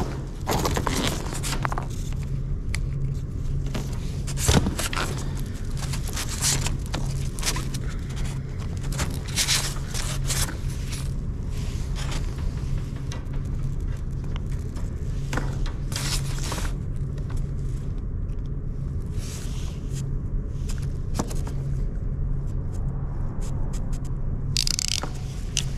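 Hand-tool and fitting-handling noises: irregular clicks and scrapes, with one sharper knock about four and a half seconds in, as a red plastic in-floor heating pipe is joined with a brass coupling and stainless steel crimp rings. A steady low machine hum runs underneath.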